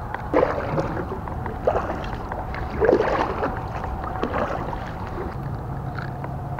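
Kayak paddle strokes in calm water: the blade dipping and splashing about three times in the first three seconds, then lighter movement. A low steady hum comes in near the end.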